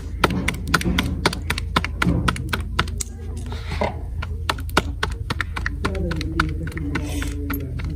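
Roti dough being slapped back and forth between the palms by hand to flatten it, a quick, steady run of soft pats at about four a second.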